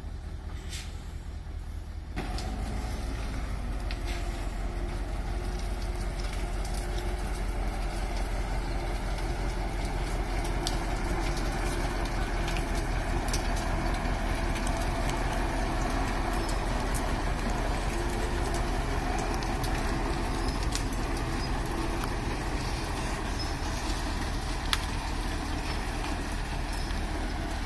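Diesel engine of a loaded Mitsubishi Fuso dump truck running under load as the truck moves slowly. It gets louder about two seconds in and then holds steady.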